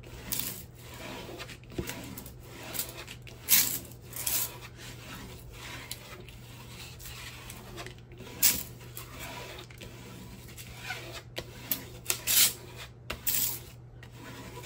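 Clear plastic protective film on a diamond-painting canvas rustling as it is swept flat with a hand and a flat scraper to push the air out, in a string of short, irregular strokes.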